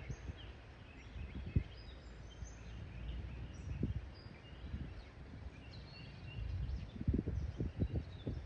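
Songbirds chirping over a low outdoor rumble with irregular low thumps, several of them close together near the end.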